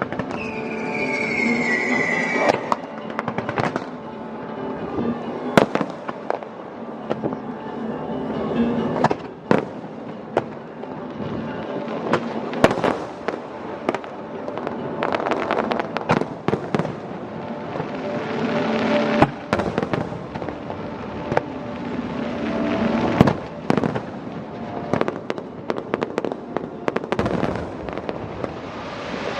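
Aerial fireworks bursting in quick succession, sharp bangs mixed with crackling. A whistle falls in pitch over the first couple of seconds. Music plays underneath.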